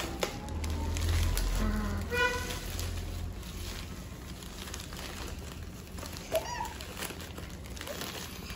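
Plastic courier bag rustling and crinkling as a child handles it and pulls a box out of it, with a few small clicks. A child's short high vocal sound about two seconds in.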